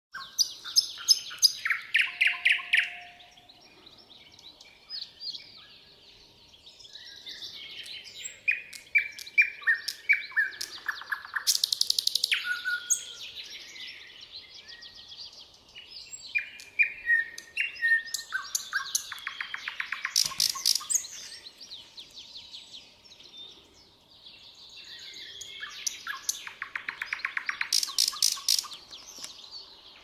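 Thrush nightingale singing: loud phrases of rapidly repeated whistled notes, clicks and rattles, separated by short pauses of a second or two.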